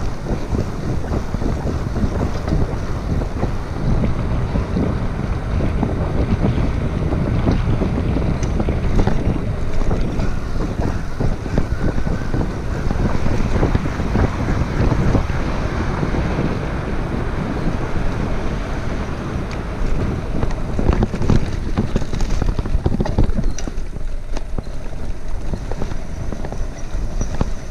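Wind buffeting the GoPro microphone on a moving bicycle, over the steady rumble of the bike's tyres rolling on wet pavement and grass. Frequent small knocks and rattles come from the bike over bumps.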